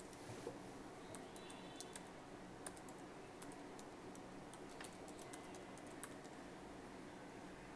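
Faint typing on a computer keyboard: quick, irregular keystroke clicks.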